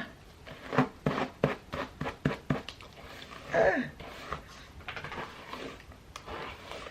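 Hairbrush strokes through tangled hair: a quick run of short brushing swishes, then softer strokes, with a short groan about three and a half seconds in.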